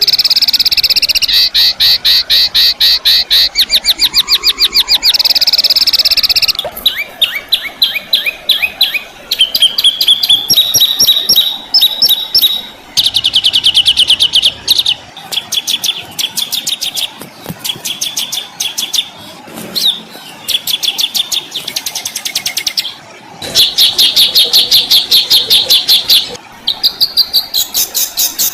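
Songbird calling in harsh, rapid trills: fast runs of repeated notes, each run lasting one to several seconds, with short breaks between them.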